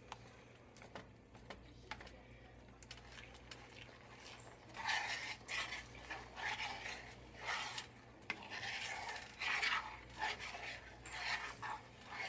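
A few light clicks, then from about five seconds in a spoon scraping and stirring in a pot in repeated strokes, roughly one a second.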